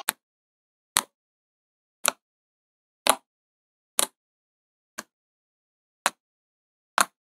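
Fingertips poking into soft slime: a short squishy pop with each poke, about once a second, eight times.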